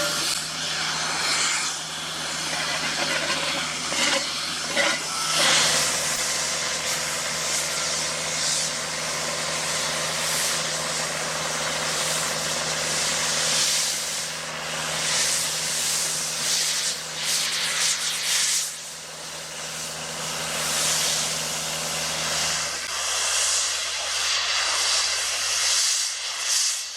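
Heavy diesel machinery running steadily under a loud, fluctuating hiss; the engine hum drops away near the end.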